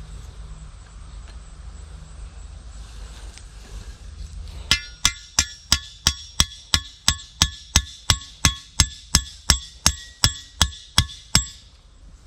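Hand hammer driving steadily: about twenty quick, evenly spaced blows at roughly three a second, starting a few seconds in, each with a short ringing clink.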